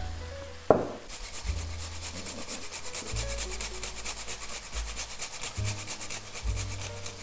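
Whole nutmeg grated on a fine metal rasp grater: quick, even scraping strokes, several a second. A sharp knock comes just before the grating starts.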